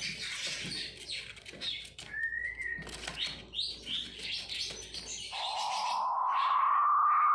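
King quail (blue-breasted quail) calling: many short chirps and a short rising whistle, then, about five seconds in, a loud harsh rasping call held for over two seconds, the snoring 'ngorok' call.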